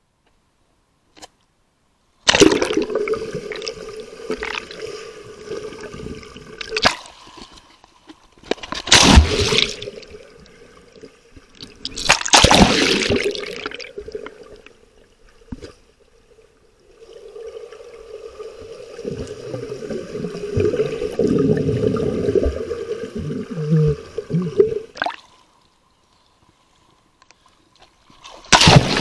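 Swimming-pool water sloshing and splashing around an action camera as it dips in and out of the surface. The sound comes in surges a few seconds long with short quiet gaps, and the sharpest splashes come about nine, twelve and twenty-eight seconds in.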